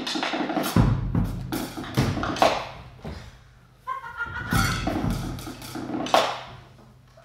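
Percussive music: irregular heavy thuds and sharp wooden knocks over a low steady hum, dropping away for a moment a little past halfway before the strikes return.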